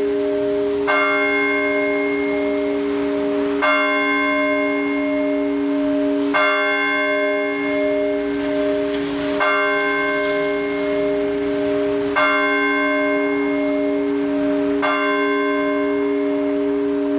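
Russian Orthodox church bells being rung by hand. A chord of smaller bells is struck together about every three seconds, six times, over the steady hum of the larger bells still ringing on.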